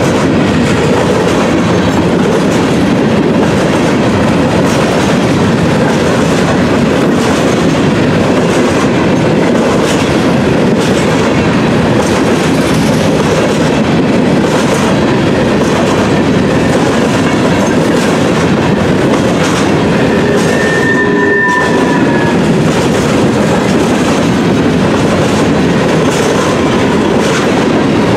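Freight train of covered hopper cars rolling past close by: a loud, steady rumble of steel wheels on rail with a clickety-clack over the rail joints.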